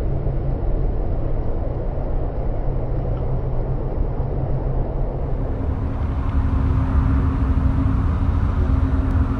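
Vent pipes on a building wall giving off a steady low droning rumble with humming tones. About five seconds in, a higher hum joins.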